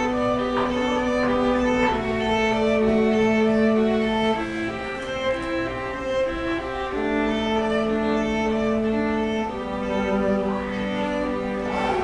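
Background music of bowed strings playing slow, long held notes in layered chords that change every couple of seconds.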